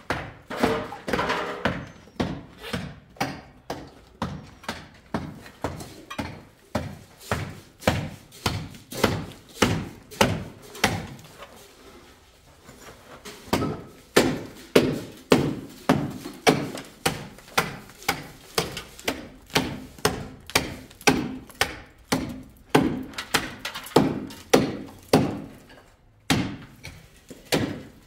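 Hammer blows knocking in a steady rhythm, about one and a half a second, with a brief pause about twelve seconds in.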